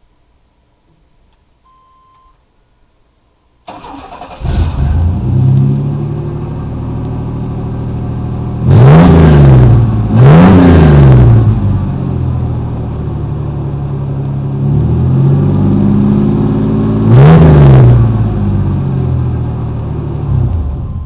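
1991 Chevy S10 pickup's engine through Flowmaster mufflers: it cranks and catches a few seconds in, settles into an idle, is revved three times (two revs close together, then one more later), and is shut off at the end.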